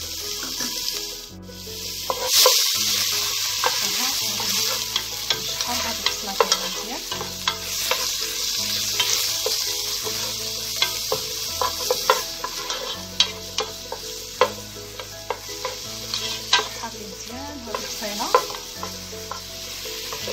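Grated onion sizzling in hot olive oil in a nonstick pot, with a wooden spoon repeatedly stirring and scraping the bottom. The sizzle swells about two seconds in.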